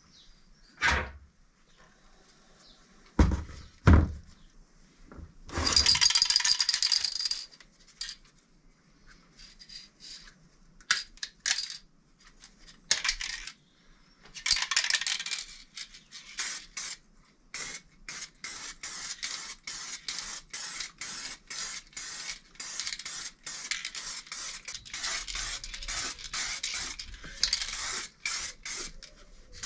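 Workshop handling noises: a few sharp knocks of metal parts being set down, a longer hissing scrape, then a long run of short scratchy strokes at about two a second.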